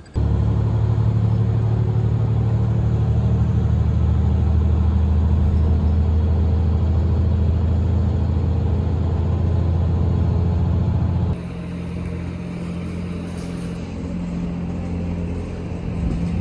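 Car on the move: a steady low rumble of engine and road noise, which drops to a quieter, different rumble about eleven seconds in.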